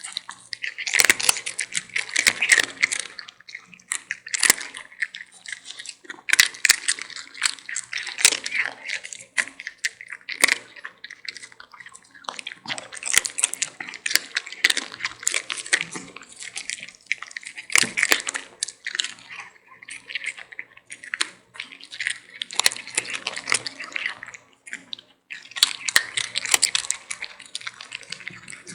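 Kitten and puppy play-fighting at close range: irregular scuffling, clicking and wet mouthing sounds as they nip and chew at each other.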